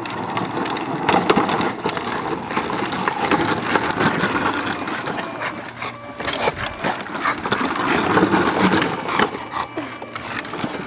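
Battery-powered Power Wheels toy jeep driving, its hard plastic wheels rumbling and crunching over pavement and grass, with a steady whine from the electric motor and gearbox in the first few seconds. The noise drops away briefly about six seconds in, then picks up again.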